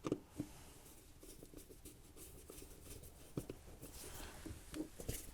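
Faint, scattered light clicks and scraping of small hand work on wiring: a crimped wire connector being fitted under a terminal washer and screw.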